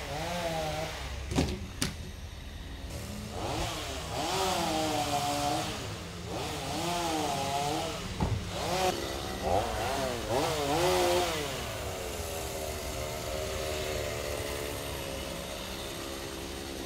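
Chainsaw running, its engine pitch rising and falling again and again as the throttle is worked, then holding steady for the last few seconds. Two sharp clicks sound about a second and a half in.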